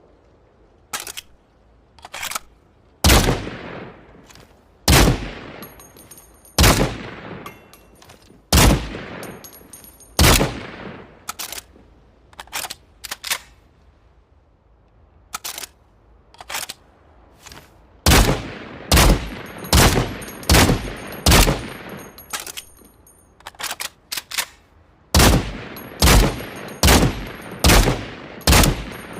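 Heckler & Koch PSG-1 semi-automatic 7.62×51mm sniper rifle firing. Single shots with a long echoing tail come about two seconds apart, then faster strings of shots roughly one a second, with quieter clicks in between.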